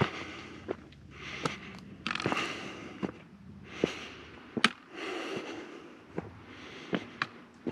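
A hiker's footsteps crunching irregularly, with a few sharp clicks and sniffing breaths between them.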